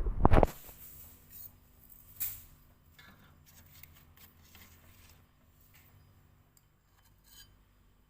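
A loud knock at the very start, then scattered light clicks and rustles of something being handled, over a faint steady hum.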